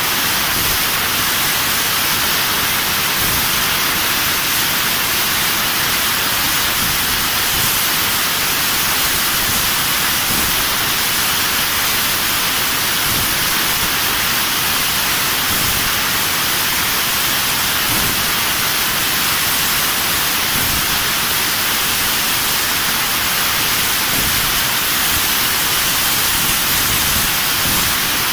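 Fiber laser tube cutting machine cutting steel tube: a loud, steady hiss.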